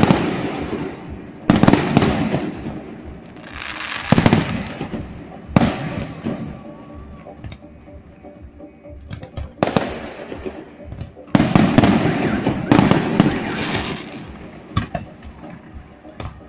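Aerial fireworks display: about seven large shell bursts, each a sudden bang followed by a long rolling echo that fades over a second or two, spaced one to four seconds apart, with a few smaller cracks near the end.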